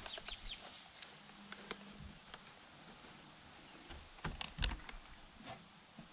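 Faint scattered clicks and knocks as a plank wooden door is handled and set into its frame, with a few low thumps about four and a half seconds in.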